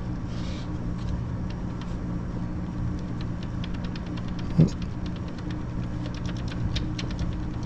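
Ballpoint pen writing on a sticky note on a hard counter: light scratches and ticks that grow busier over the second half, with one sharp knock about four and a half seconds in. Under it runs a steady low hum.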